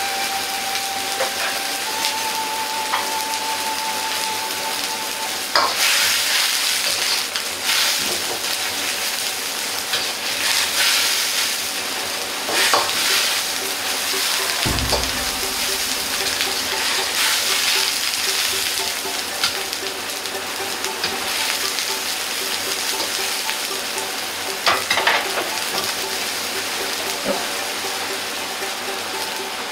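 Chinese cabbage boiling in liquid in a wok over a gas burner: a steady bubbling sizzle that grows brighter about five seconds in. A metal ladle clinks against the wok a few times as the cabbage is stirred.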